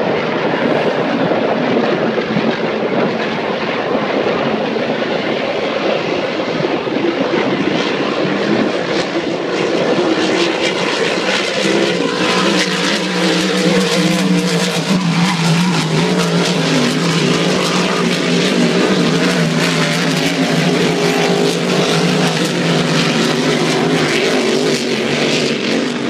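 Several vintage unlimited hydroplanes racing at speed, their V-12 aircraft piston engines making a continuous loud drone. A steady low engine note grows stronger about halfway through as the boats pass.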